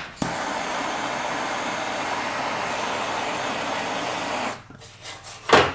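A steady rushing hiss that comes on suddenly and cuts off after about four seconds.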